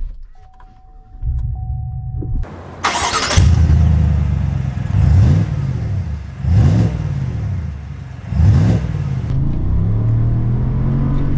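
Chevrolet Silverado 1500 Black Widow's 6.2-litre V8 firing up with a loud flare about three seconds in, then revved hard three times, each rev rising and falling in pitch. Near the end it runs steadily under load as the truck drives.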